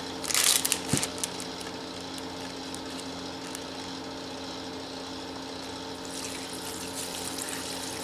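Plastic Ziploc bag crinkling as it is opened by hand, then from about six seconds in, water poured from a pot into the bag in a steady stream, over a faint steady hum.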